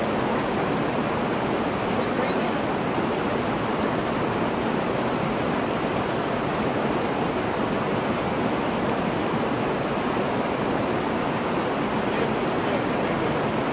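Steady rush of water from a small cascade pouring over sandstone ledges close by, an even, unbroken white-water sound.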